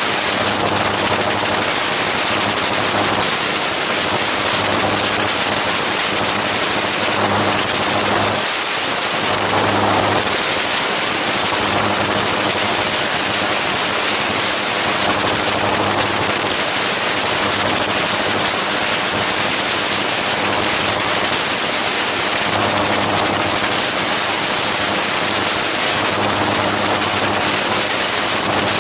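A gyroplane's engine and pusher propeller droning in steady cruise, with a low hum that swells and fades every few seconds. Wind rushes loudly over the exposed microphone.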